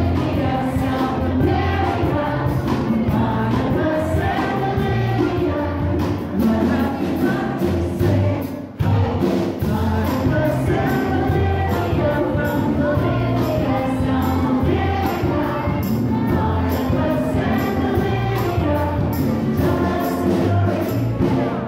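A live band with electric guitar, keyboard and drum kit playing an upbeat song while a group of voices sings along, over a steady bass line and regular drum and cymbal hits. The music breaks briefly about nine seconds in.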